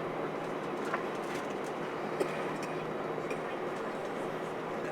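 Steady cabin noise inside an Airbus A320 airliner, an even rush from the engines and air systems with a low constant hum underneath and a couple of faint clicks.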